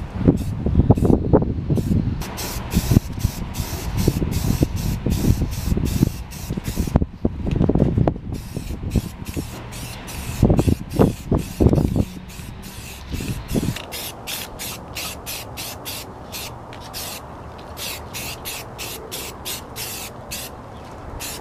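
Aerosol can of Rust-Oleum self-etching primer hissing in many short bursts, about two a second, as the first coat is sprayed onto a wheel. An irregular low rumble sits under the spraying for the first dozen or so seconds and then drops away.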